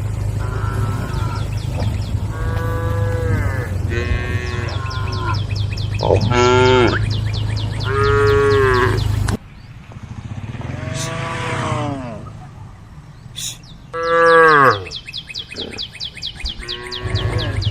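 A herd of cows mooing back and forth, about nine calls of a second or so each, some bending up then down in pitch and one falling low. Under the first half and again near the end runs a steady low hum with fast ticking, which cuts out abruptly about nine seconds in.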